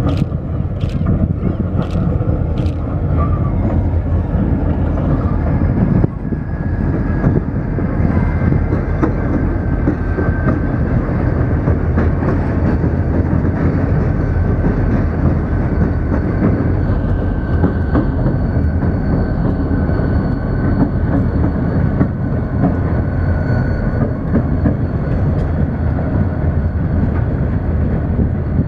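Wheeling & Lake Erie freight train with four diesel locomotives passing, a steady heavy rumble of engines and wheels with a thin high whine over it.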